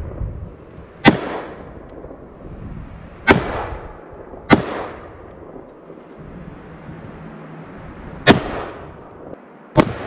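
Sig Sauer M400 AR-15 rifle firing .223 rounds: five single shots at uneven intervals, each a sharp crack followed by a trailing echo.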